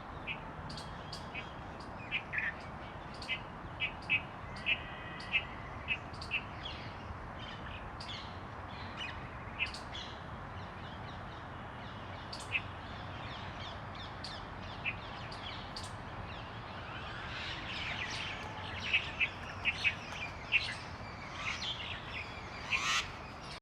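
Oriental magpie robin calling: short, sharp, high notes scattered every second or so, turning into a busier run of quick notes near the end, over a steady background hiss.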